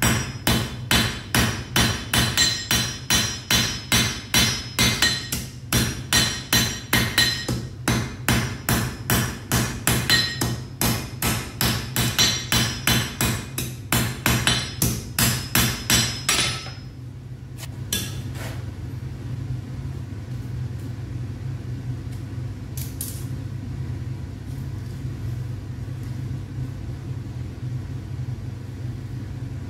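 Blacksmith's hand hammer striking hot iron on an anvil in a steady rapid rhythm, about three blows a second, each with a bright metallic ring. The hammering stops about two-thirds of the way in, leaving a steady low rumble.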